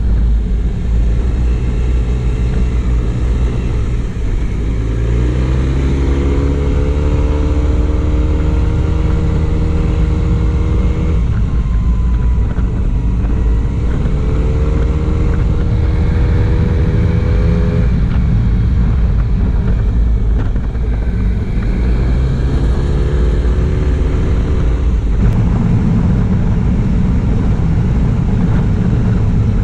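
Honda Silver Wing 400 maxi scooter's parallel-twin engine running under way, over a steady low rumble. Its pitch climbs three times as the throttle opens, holds, then drops off as the throttle is closed.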